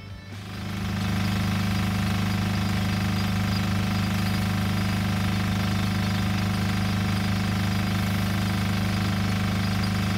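A motor running steadily with a constant low hum, together with the even hiss of a hose nozzle spraying water. It fades in over about the first second.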